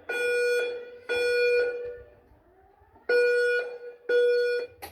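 Fire alarm speaker strobes on a Simplex 4100ES panel sounding the temporal-three evacuation tone. Half-second beeps of one steady, buzzy low tone: two beeps, a pause of about a second and a half, then two more.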